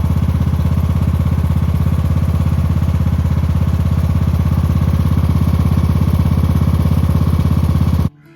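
An engine running steadily at idle with even, rapid firing pulses, cutting off suddenly near the end.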